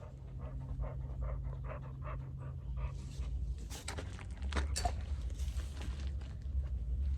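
A dog panting quickly in an even rhythm of about five breaths a second, then a few sharp clicks or knocks about four seconds in.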